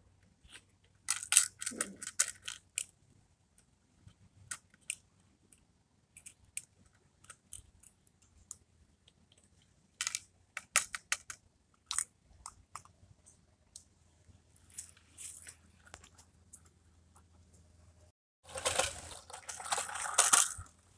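Plastic clicks and short rattles of a toy rear-loader garbage truck being worked by hand at its back end. Near the end comes about two seconds of denser scraping rattle as the toy truck is pushed along rough pavement.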